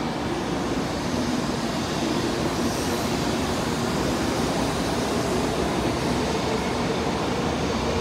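N700-series Shinkansen train pulling out along a platform track: a steady rumble of wheels and running gear that grows a little louder as it picks up speed.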